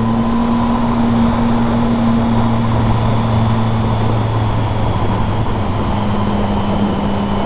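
Triumph Speed Triple's three-cylinder engine running at a steady cruise inside a road tunnel, its pitch rising slightly in the first second and then holding. Wind and road noise run underneath.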